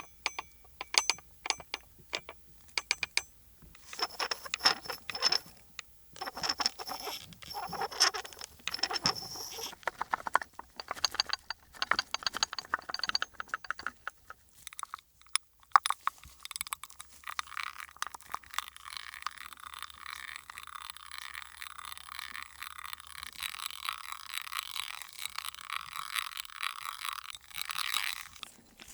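Foley sound effects performed close to a microphone. First come many sharp clicks and taps with short metallic jingles. Then, from about sixteen seconds in, a long steady rustling scrape runs until just before the end.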